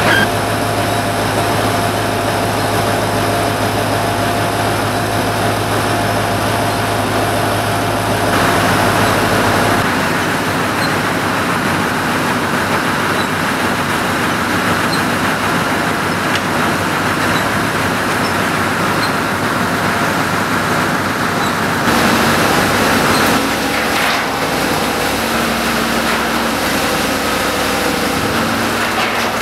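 Menck M154 cable excavator's engine running steadily, with a constant hum; the note shifts about eight seconds in and again after about twenty-two seconds.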